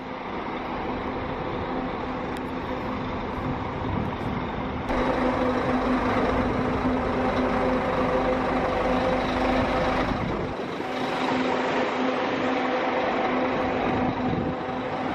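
Diesel bus engine idling: a steady, even hum with a low drone. The sound steps up about five seconds in and shifts again about ten and a half seconds in, where the footage is cut.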